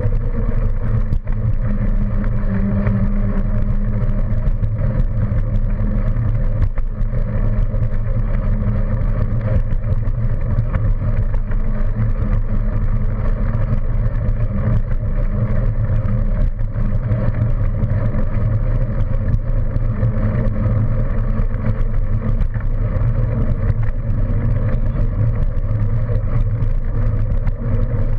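Steady low rumble of riding along a paved path: wind buffeting the microphone and wheel noise, with a faint steady hum above it.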